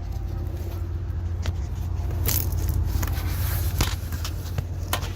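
Handling noise from a phone being worked down into an engine bay: scattered scrapes and small knocks over a steady low rumble.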